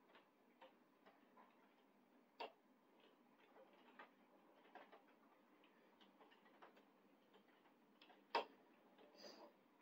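Very faint, irregular ticking and tapping over near silence, with a louder tap about two and a half seconds in and the sharpest click just past eight seconds.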